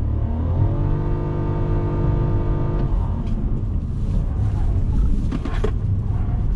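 Nissan Kicks e-POWER at full power in a lane-change manoeuvre: its 1.2-litre petrol generator engine revs up and holds a steady drone for about two seconds, then drops away, over low road and drivetrain rumble. A few short sharp noises come near the end.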